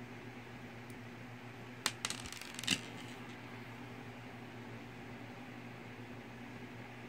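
Small plastic Mega Bloks pieces clicking and snapping together a few times, close together, about two seconds in, over a steady low hum.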